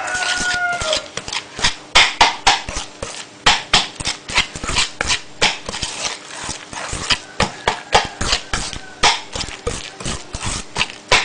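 Wire whisk clattering against a ceramic mixing bowl in quick, irregular strokes, stirring ground roasted peanuts into a thick butter, sugar and egg-yolk batter. It makes a sharp clink about two to three times a second.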